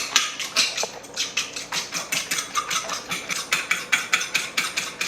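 A duck egg and half-and-half being beaten in a bowl, the utensil clicking against the bowl in a fast, even rhythm of about five strokes a second.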